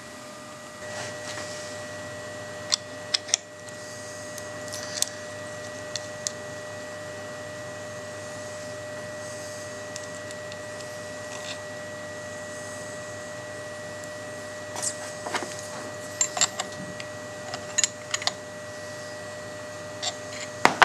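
Small metal clicks and taps from fitting an ER11 collet, collet nut and engraving bit into a CNC router spindle and tightening the nut with spanners. The clicks come in a cluster near the start and again in the last few seconds, over a steady background hum.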